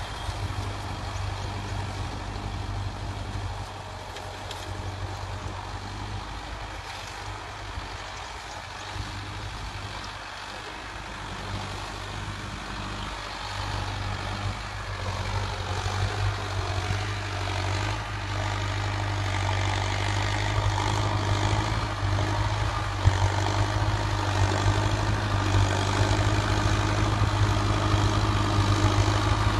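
Mahindra Arjun tractor's diesel engine running steadily under load as it drives a rotavator through dry soil, growing louder in the second half as the tractor comes closer.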